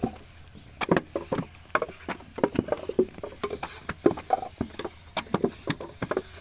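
Hand-moulding of clay bricks: wet clay slapped and pressed by hand and a wooden brick mould knocked down on and lifted from sandy ground, making an irregular run of soft slaps and knocks, several a second.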